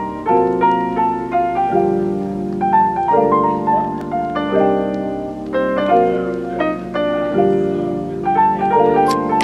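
Background music: a gentle piano melody of single notes over held chords.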